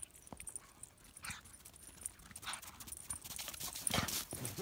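A dog's paws and other footfalls crunching on packed snow in a quick run of strokes, getting louder near the end.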